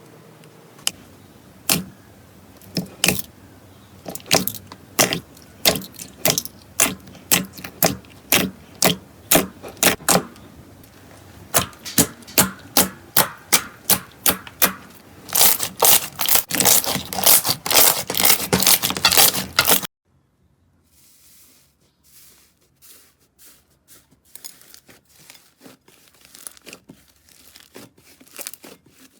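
Slime being squeezed and worked by hand, giving a run of sharp clicking pops about two a second that thicken into a dense crackle. About two-thirds through it cuts off abruptly, and a much quieter run of soft clicks follows.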